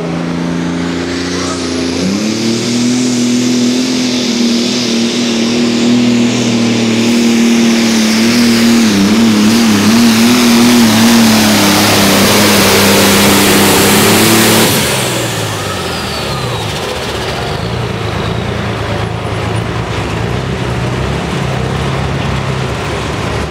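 Turbocharged diesel pulling tractor at full throttle on a pull. The engine climbs in pitch about two seconds in and holds high, wobbling briefly midway. About fifteen seconds in it backs off sharply, a high turbo whine falls away, and it runs on at lower revs.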